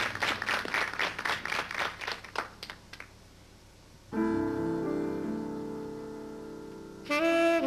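Audience applause thinning out and dying away; about four seconds in, a grand piano chord is struck and left to ring, and near the end a saxophone comes in with a short phrase.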